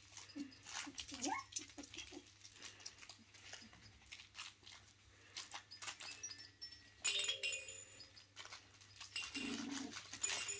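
Four-week-old kooikerhondje puppies whimpering and squeaking in play, a few short high squeals rising in pitch in the first second or two, over scattered small clicks and rattles. A louder scuffle comes about seven seconds in, and a lower puppy whine or yap near the end.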